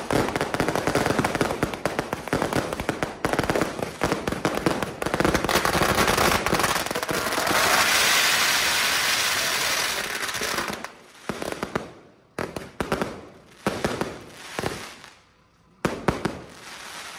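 Firecrackers and fireworks going off: dense, rapid crackling and banging, then about three seconds of steady loud hissing from a ground fountain spraying sparks. After that come scattered single bangs that thin out near the end.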